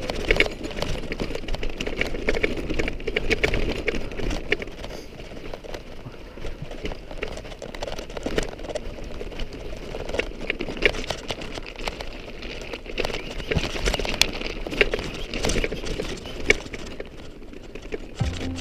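Mountain bike rolling over a rough dirt and gravel trail: tyre noise on loose ground with irregular clicks, knocks and rattles from the bike.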